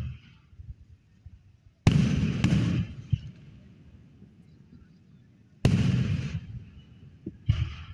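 Aerial fireworks shells bursting: two sharp booms about two seconds in, half a second apart, another near six seconds, and a smaller one near the end. Each is followed by a short fading tail.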